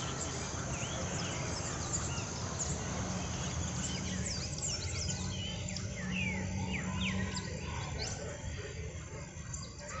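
Many birds chirping together in a tree, a dense chorus of short quick calls that grows busier about halfway through, over a steady low rumble.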